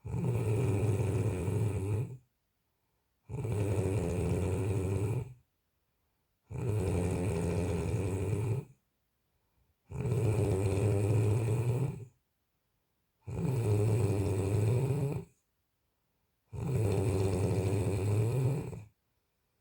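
Regular snoring: six long snores of about two seconds each, a low steady buzz repeating roughly every three seconds, with silence between them.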